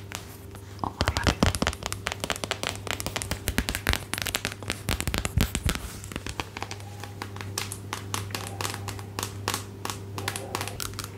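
Close-miked crinkling and crackling: a dense, irregular run of sharp clicks from something being handled as an ASMR trigger, over a faint steady hum.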